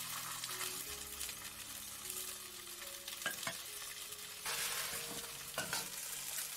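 Two perch sizzling as they fry in hot oil in a pan, with a steady hiss and a few sharp clicks of the spatula against the pan about three and a half seconds in and again near the end. The sizzle grows louder about four and a half seconds in.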